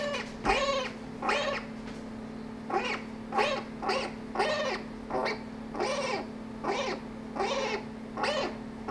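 Domestic cat meowing over and over, about a dozen short meows a little more than one a second, each rising then falling in pitch.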